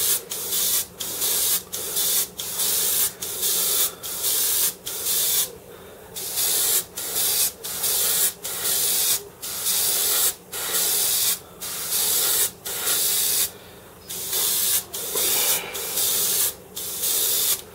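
Airbrush spraying paint in short bursts of hiss, about one a second, as the trigger is pulsed while the paint is laid on side to side. A faint steady hum runs underneath.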